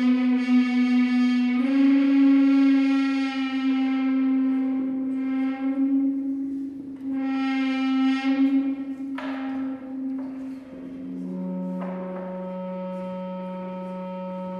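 Sustained horn-like drone drawn from a drum by extended technique and amplified through a contact microphone, holding one note with swelling and fading pulses, then dropping to a lower steady note about eleven seconds in.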